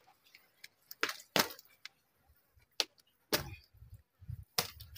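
A handful of sharp clicks and knocks at irregular intervals, some followed by a brief low rumble.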